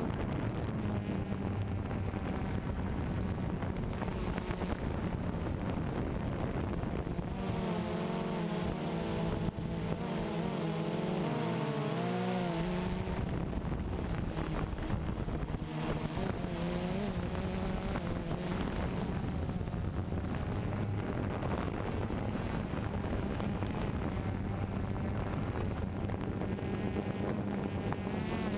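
DJI Phantom 2 quadcopter's motors and propellers buzzing steadily, recorded by the GoPro on board. For several seconds in the middle the pitch wavers up and down.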